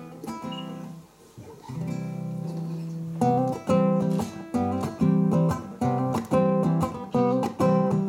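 Acoustic guitar playing a song introduction alone: a few soft plucked notes, then from about three seconds in, loud chords strummed in a steady rhythm.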